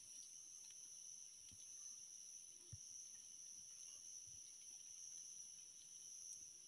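Faint, steady, high-pitched chorus of insects, with a few soft low knocks in the middle.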